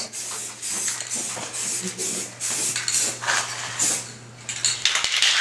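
Irregular rubbing and scraping strokes as a small metal engine part is scrubbed clean by hand, with light metallic clinks and a faint steady hum underneath.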